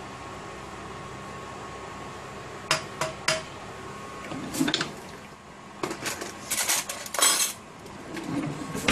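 Cookware and utensils clinking and clattering against a pot: three quick clinks a few seconds in, then scattered bursts of knocking and scraping.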